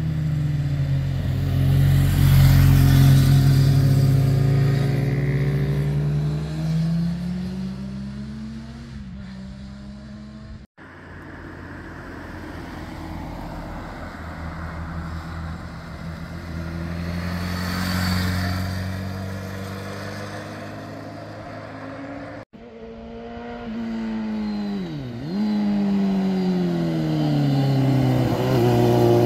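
Motorcycle engines passing through a bend one after another, their pitch falling as the riders roll off and rising again as they accelerate away, with abrupt cuts between passes about 11 and 22 seconds in. In the last pass a Suzuki GSX-R sport bike drops sharply in pitch, then climbs and grows loud as it comes close.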